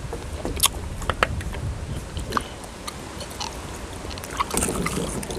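Close-up eating sounds: crisp bites and chewing of fried food, a string of short crunches and clicks. A steady low rumble of wind on the microphone runs underneath.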